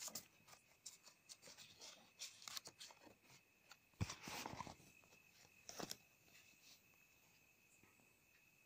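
Faint handling sounds of a paper greeting card: light rustles and taps, with a sharper knock about four seconds in and a short rustle after it, then quiet.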